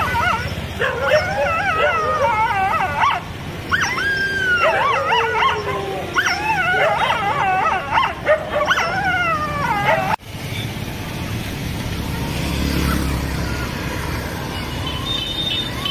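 Several street dogs howling and whining together in distress, with overlapping wavering cries that rise and fall, beside a dog that has been hit by a bike. About ten seconds in the sound cuts off abruptly to steady street traffic noise with a motor vehicle rumbling past.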